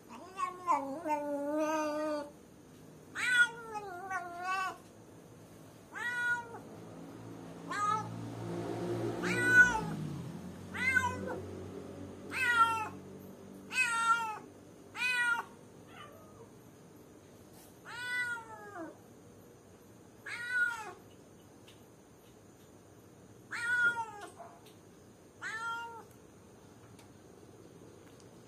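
Domestic cat meowing over and over, about fifteen short calls, many falling in pitch at the end. The calls come quickly at first and farther apart later on: a lone cat calling for someone. A low noise swells briefly behind the calls about eight to ten seconds in.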